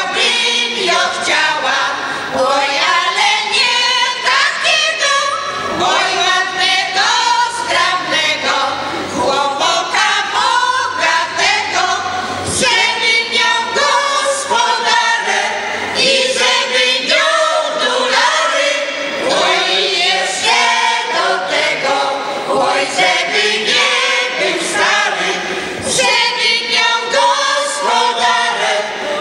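Folk choir, mostly women's voices, singing a Polish folk song unaccompanied in full voice, in phrases with brief breaks between them.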